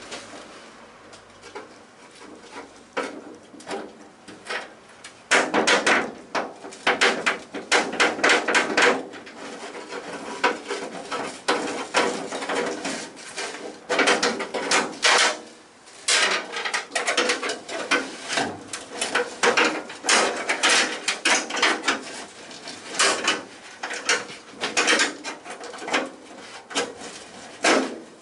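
Hand tools clicking and knocking in rapid runs with short pauses between, as work goes on removing the Mini's front subframe.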